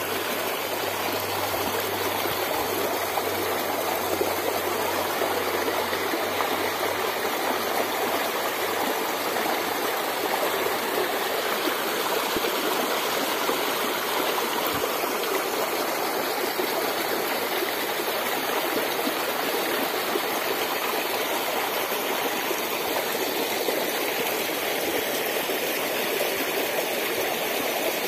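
Shallow rocky stream flowing steadily, water rushing and splashing over stones.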